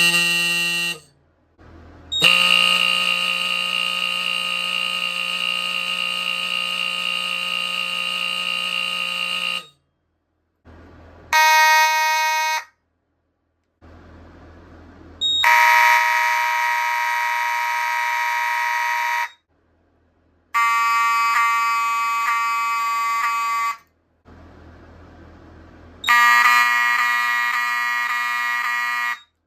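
Old mechanical fire alarm horns sounding one after another: six loud, steady, buzzing blasts with different pitches, the first brief and the others a few seconds each, separated by short pauses. The horns are run on filtered DC and on full wave rectified power; the full wave rectified power's 60 pulses a second make the old horns sound scratchier.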